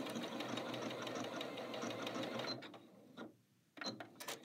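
Janome Skyline 6 computerized sewing machine stitching a wide decorative stitch at a steady, even rhythm, the feed dogs moving the fabric back and forth; it stops about two and a half seconds in, followed by a few light clicks.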